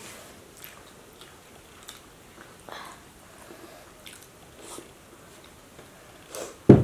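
People chewing and picking at fried fish by hand: faint, scattered mouth smacks and clicks. A sudden loud thump near the end.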